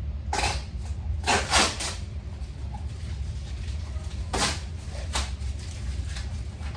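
Packing tape being ripped off a cardboard shipping box: several short, noisy tearing rips, the loudest about a second and a half in.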